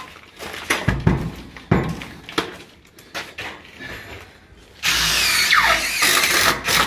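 A few knocks, then from about five seconds in a cordless drill runs for about two seconds, driving a screw through a 50 mm AAC wall panel into the timber behind, its pitch falling as it runs.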